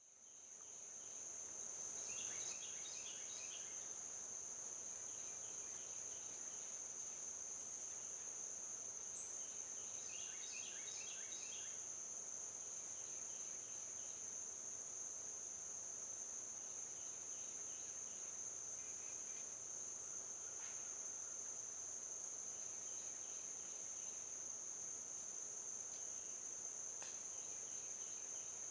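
Steady high-pitched insect trill, with short bursts of rapid, lower chirping recurring every few seconds.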